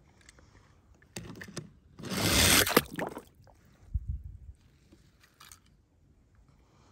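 A toy car clattering, then a splash and rushing water for about a second, two seconds in. A dull thump follows about four seconds in.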